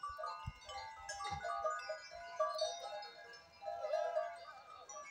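Many neck bells on a grazing flock of goats and sheep ringing and clinking irregularly, with overlapping tones starting and stopping at random, and a short bleat about four seconds in.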